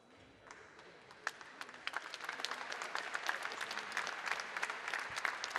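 Arena crowd applauding, starting about half a second in and growing steadily louder and denser.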